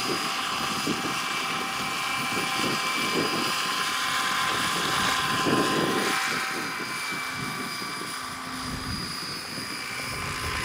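Electric RC scale Hughes 500 model helicopter hovering and flying low: a steady high whine from the electric motor and gearing over the rush of the rotor blades. It swells a little about five seconds in and eases off after.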